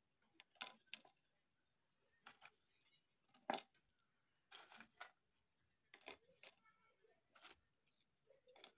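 Faint, scattered light clicks and taps as crisp fried papdi discs are set down one by one on a ceramic plate and nudged into place.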